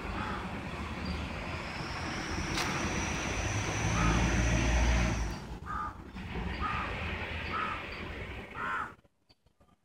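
A passing vehicle's low rumble swells to its loudest about halfway through and fades, then a bird calls several times in short calls. The sound cuts out almost entirely about a second before the end.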